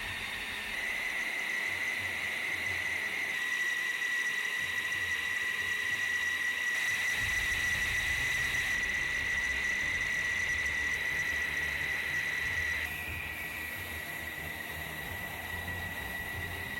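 Jet engine's steady high-pitched turbine whine, with a low rumble joining about seven seconds in.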